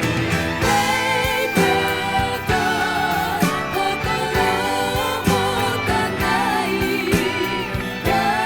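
Late-1970s Japanese pop song: a sung vocal line with vibrato over a full band, with a steady beat.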